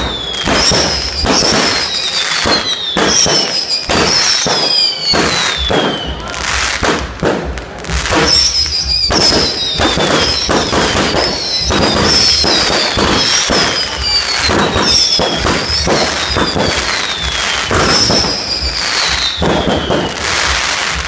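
Aerial fireworks going off overhead: a rapid string of bangs and crackles mixed with about a dozen whistling shells, each whistle falling in pitch over a second or so.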